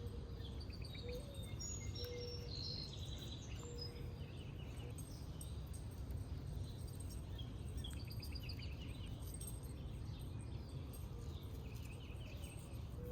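Outdoor yard ambience: birds chirping in short calls and trills, with some brief lower whistled notes, over a steady low rumble of background noise.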